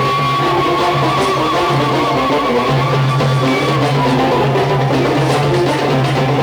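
Instrumental passage of Algerian chaabi music: plucked strings and hand drums playing steadily over a bass line, with one long held melody note through the first half.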